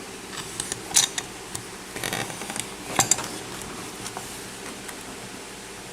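Light metallic clicks and clinks of a padlock and lock-picking tools being handled, with a few sharp ticks about one, two and three seconds in.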